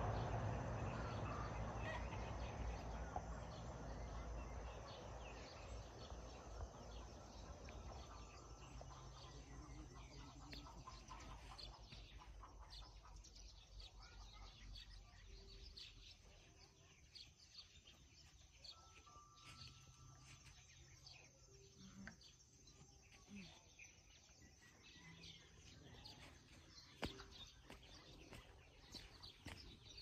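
Faint farmyard ambience: birds chirping with short, frequent calls and now and then a brief call from poultry. A low rumble fades away over the first several seconds.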